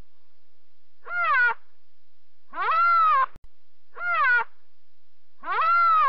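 White rhinoceros giving four short, high-pitched squealing calls about a second apart, each rising and then falling in pitch.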